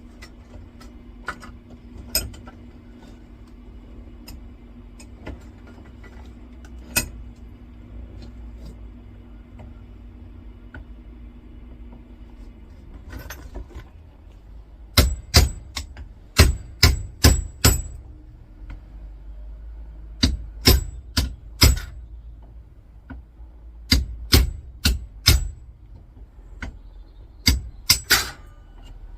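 Hammer blows on a small transformer clamped in a vise, driving its copper-wound core out of the welded casing. After a stretch of occasional light clicks, groups of sharp metallic strikes come in quick runs of two to five through the second half.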